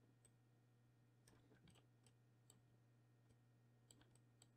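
Near silence, with a faint steady low hum and scattered faint clicks of a computer mouse.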